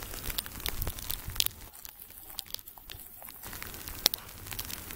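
Scattered small sharp ticks and light crunching of sleet and wet snow, with a low rumble in the first second and a half.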